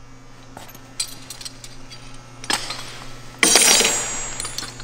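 Steel concrete wall-forming hardware being handled on the form: a few light metal clicks, then a louder metallic clatter with a short ringing about three and a half seconds in.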